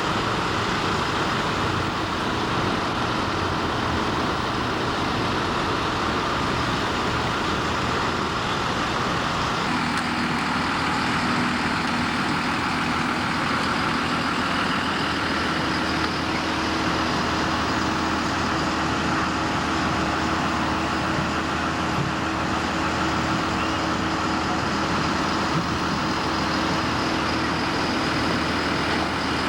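A heavy vehicle's engine running steadily, its low hum shifting to a different tone about ten seconds in.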